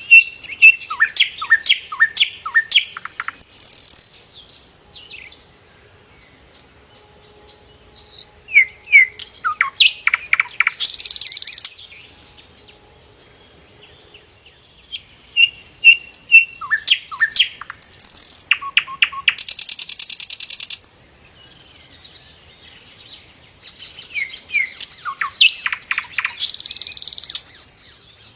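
Sikatan londo flycatcher singing in four bouts of quick, sharply falling whistled notes mixed with harsh buzzy trills, each bout separated by a pause of a few seconds.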